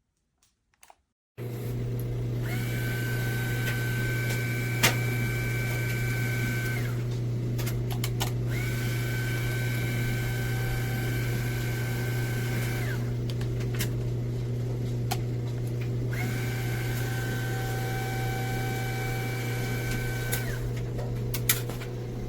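Tineco cordless stick vacuum switching on about a second in and running steadily with a loud motor hum. A higher whine rises and drops away three times, with a few sharp clicks.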